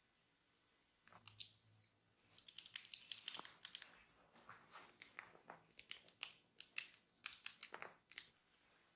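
Close-up crackling and scratching: irregular runs of sharp, dry clicks, starting about a second in and stopping just after eight seconds, with brief pauses between runs.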